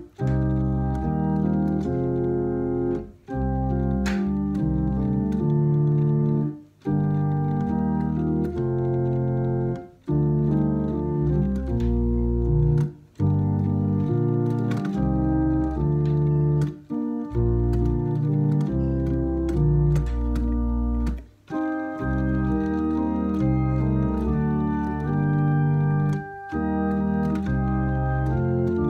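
Electronic home organ playing sustained chords of a Mass setting in B-flat, with brief breaks between phrases every few seconds.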